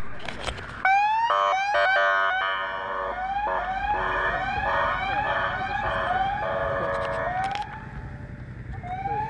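Police car siren sounding in short bursts. It gives a rising whoop, then a fast warble, then repeated rising wails about twice a second that break off about three-quarters of the way through, with one more whoop near the end.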